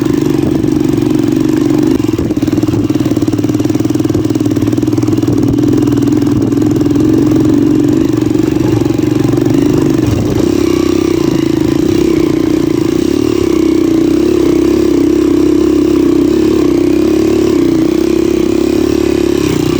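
Motorcycle engine running steadily under way, a loud, even engine note with small rises and falls in pitch.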